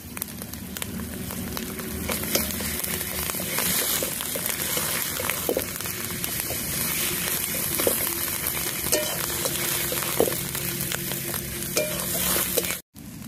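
Onion and garlic paste sizzling in hot ghee in a metal wok, with a metal spatula scraping and tapping the pan now and then as it is stirred. The sound cuts out for a moment near the end.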